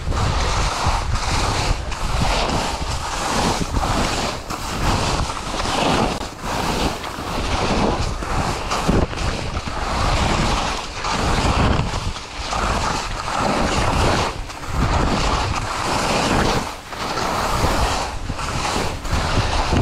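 Skis scraping and swishing through snow on a downhill run, mixed with wind rushing over the microphone. The noise swells and dips roughly once a second with the turns.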